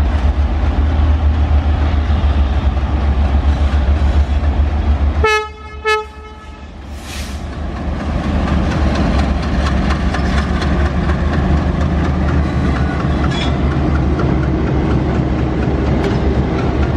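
WDM-3A ALCO diesel locomotive working under power as the double-headed train pulls slowly past, a steady low drone. About five seconds in, a locomotive horn gives a short blast and a brief second toot. After that, the passing locomotives and coaches rumble and clack over the rail joints.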